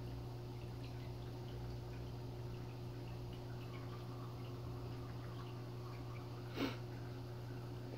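Steady low hum of running aquarium equipment, with faint scattered water drips and ticks, and one sharp click near the end.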